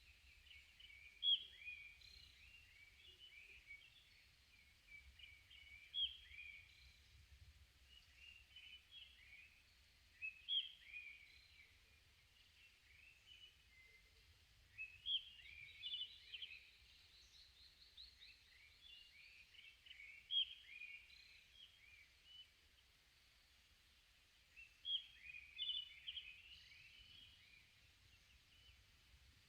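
Songbirds singing: faint, short chirping song phrases repeated about every four to five seconds, over a faint low rumble.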